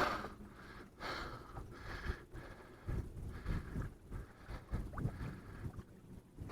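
Faint, irregular low knocks and rustles of handling in a boat.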